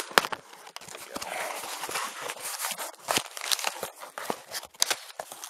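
A cardboard shipping box being opened by hand: packaging tearing and crinkling, with many sharp clicks and knocks as it is handled.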